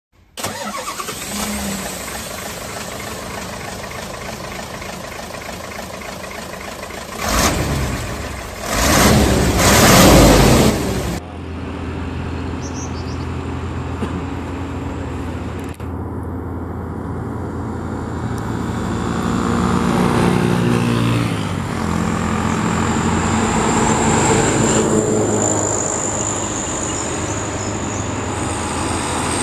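Heavy diesel trucks climbing a steep grade, engines running hard under load and revving up about twenty seconds in. Before that, for about the first eleven seconds, comes a different, brighter recording with two loud rushing surges about seven and nine seconds in.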